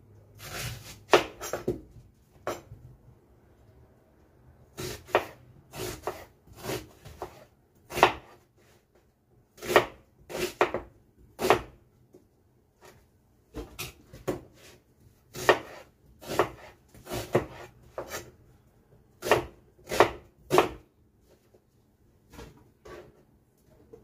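Kitchen knife chopping an onion on a plastic cutting board: irregular sharp knocks of the blade striking the board, about one or two a second, broken by short pauses.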